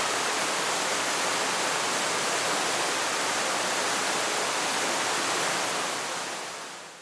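Steady rushing of a waterfall, an even roar of falling water that fades out near the end.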